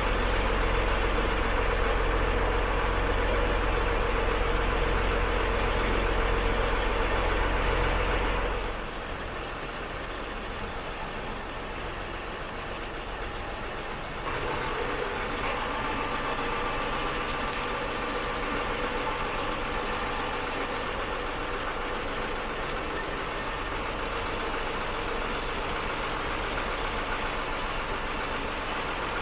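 A boat's engine running steadily. Its level drops about nine seconds in and rises again about fourteen seconds in.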